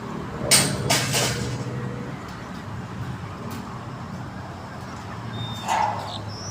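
A vehicle engine running steadily, with a few short loud noisy bursts over it about half a second and one second in, and again near the end.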